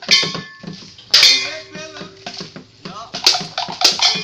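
Background music with sharp percussion hits and a few held notes, without a low drum beat.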